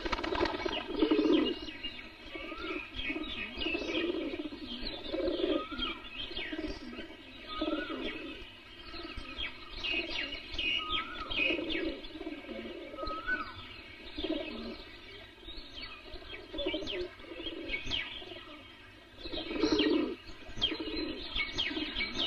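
Birds chirping, with doves cooing in low, repeated calls. The cooing is loudest about a second in and again near the end.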